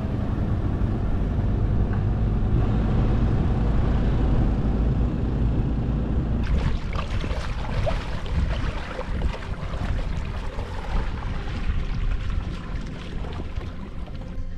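A steady low rumble outdoors, then, about six and a half seconds in, irregular splashing of feet wading through shallow sea water.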